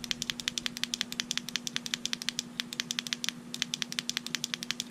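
Rear tail-cap clicky switch of a FourSevens Preon P2 penlight pressed on and off in quick succession, about eight clicks a second with two short breaks: rapid-fire presses meant to enter the light's configuration menu (ten presses within two seconds).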